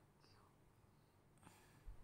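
Near silence: faint hiss, with a faint click about one and a half seconds in and a soft low bump near the end.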